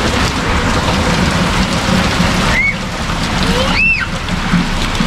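Heavy rain pouring down steadily, a dense even hiss, with two short high-pitched squeals about two and a half and four seconds in.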